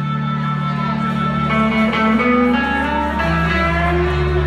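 Rock band playing live: electric guitar lines with sliding notes over steady low bass notes.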